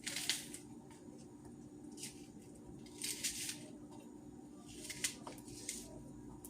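Onion being handled and cut by hand: five short scraping, crunchy sounds spaced about a second apart, the first the loudest, over a faint steady hum.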